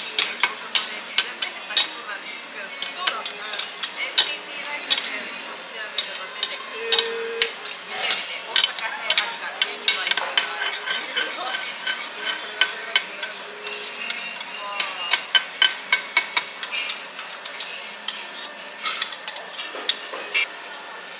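Metal spatulas clacking and scraping on a hot iron griddle in quick, irregular strokes as food is chopped and turned, with a steady sizzle underneath.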